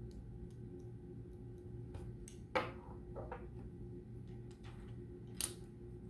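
Loose LEGO plastic pieces clicking and clattering as a hand rummages through them, with two sharper clacks about two and a half and five and a half seconds in, over a low steady hum.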